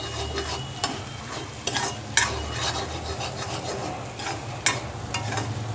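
A steel spoon stirring minced mutton and scrambled egg as it fries in a metal kadai: a steady sizzle with several sharp scrapes of the spoon against the pan.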